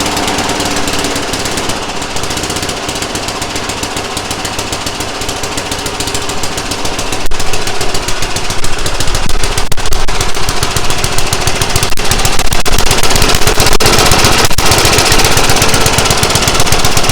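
The small engine of a John Deere lawn mower running with a rapid, even firing beat. It gets louder about seven seconds in and stays up, as the throttle is opened.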